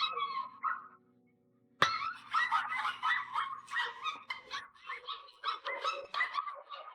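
Dog whining and yipping in quick, high-pitched calls, after a short call at the start and a sharp click about two seconds in.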